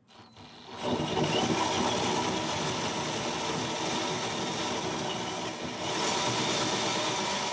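Power drill spinning a hole saw that cuts into a plastic holding tank: the drill starts about half a second in and runs steadily under load as the saw bites into the plastic.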